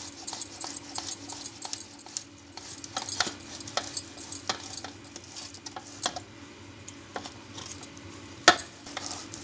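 Boiled potatoes being grated on a stainless-steel box grater: quick metallic clicks and taps of the grater, coming fast at first and then more sparsely, with one louder knock near the end.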